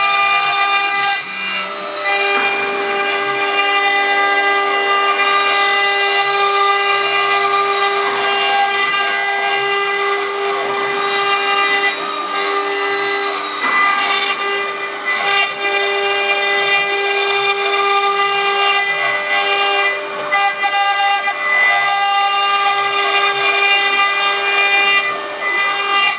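CNC router spindle running with a steady, high-pitched whine while cutting stone, over a rough grinding noise. The pitch shifts slightly a few times.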